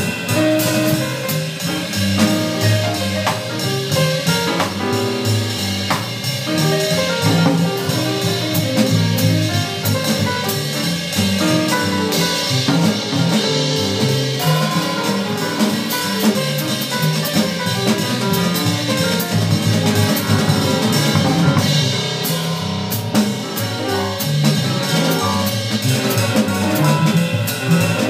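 Jazz piano trio playing live: grand piano, upright double bass and a drum kit with cymbals, playing together without a break.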